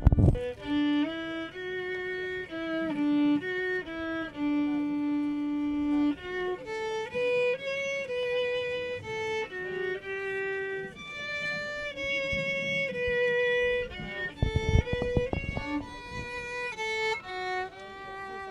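Solo violin playing a slow melody, one line of held and stepping notes. Two low bumps of noise come through, one at the start and one about 15 seconds in.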